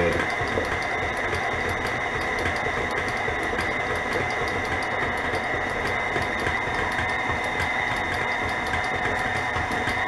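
KitchenAid Classic tilt-head stand mixer running at a steady speed, its motor giving a steady whine as the beater churns thick brownie batter in the steel bowl.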